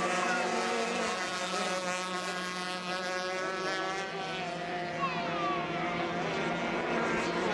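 Several racing hydroplanes' engines running flat out on the water, their high-pitched notes overlapping, with one falling in pitch about five seconds in as a boat passes.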